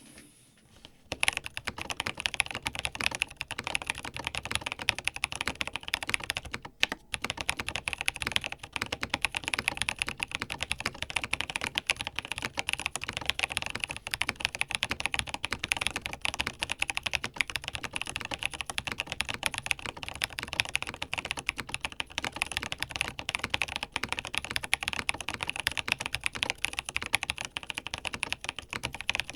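Typing on an NCR80 mechanical keyboard with Kam Boquet switches and BSP Classic Beige keycaps, tape-modded with foam in the case: a fast, steady stream of key clacks. It starts about a second in, with a brief pause about a quarter of the way through.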